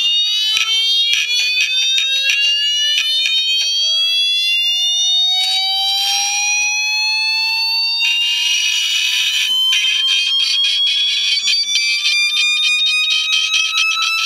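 Hard drive's voice coil actuator driven by a slowly rising frequency sweep: the read arm sounds a buzzy tone that climbs steadily in pitch, with constant crackling clicks and two spells of hissing rattle around the middle.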